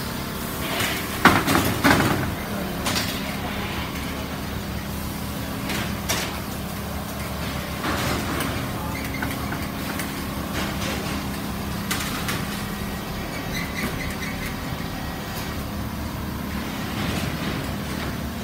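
Steady hum of quilting machines running in a factory hall, with a few short knocks and rustles, the loudest a second or two in.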